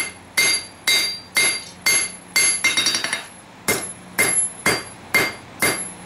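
Hammer blows on hot stainless steel over an anvil, about two strikes a second, each with a bright metallic ring, drawing out the billet. A short break about halfway through is filled with a few light quick taps before the steady blows resume.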